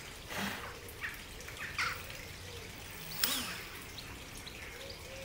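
Birds calling in the background, short chirps now and then, with a single sharp click a little over three seconds in.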